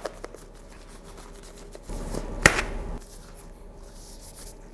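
Black disposable gloves being pulled onto the hands: quiet rubbery rustling with one sharp snap about halfway through.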